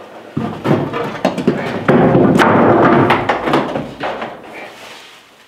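Knocks and thumps of a heavy 6-by-6-foot fiberglass-framed window being handled and set into a wood-framed opening, with a louder, denser stretch of scraping in the middle, from about two to three and a half seconds in.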